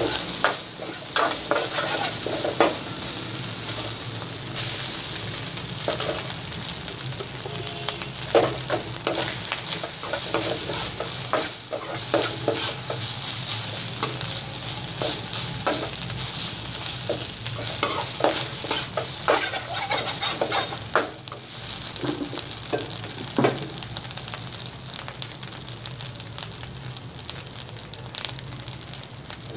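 Fried rice sizzling in a steel wok over a steady hiss, while a metal spatula stirs it. The spatula scrapes and knocks against the wok at irregular moments.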